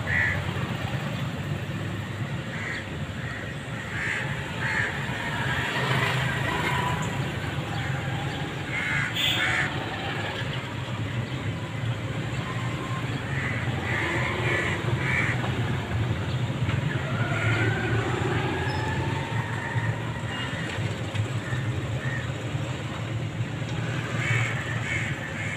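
Crows cawing now and then, short harsh calls scattered through, over a steady low rumble.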